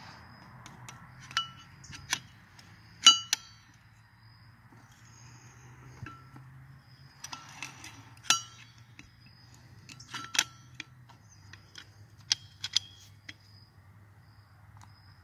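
Screwdriver held in locking pliers clinking and scraping against a steel wheel hub as the ring behind the back bearing is pried up. A series of sharp metallic clinks with short ringing, irregularly spaced, the loudest about three seconds in.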